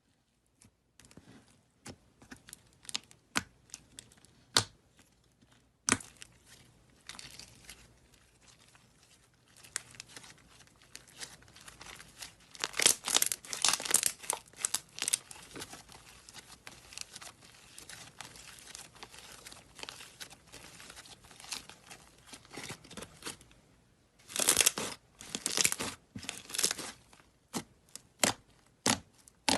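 Slime being squished and pressed by hand: a run of sticky crackling clicks and pops, sparse at first, densest around the middle and again near the end.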